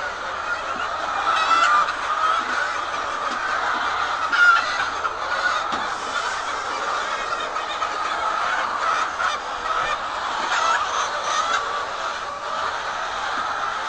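A flock of laying hens clucking and calling all at once, a continuous, unbroken din of many overlapping voices.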